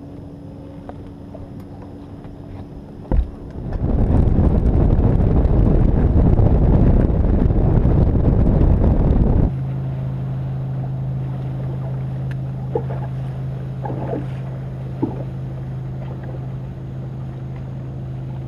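Boat sounds: a steady motor hum, a sharp click about three seconds in, then a loud rushing noise for about six seconds that cuts off suddenly, leaving a steadier, lower motor hum.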